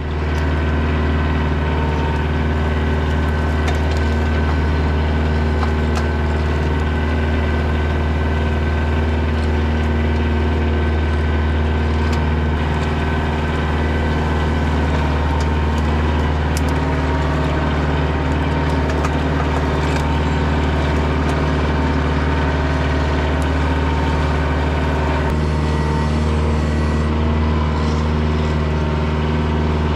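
Kioti DK40SE tractor's diesel engine running steadily: a constant low drone that holds its speed throughout.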